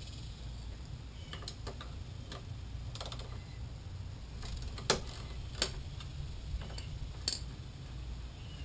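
Irregular light clicks and clinks of hand tools working on a mower wheel, the sharpest clink about five seconds in and two more over the next few seconds, over a low steady rumble.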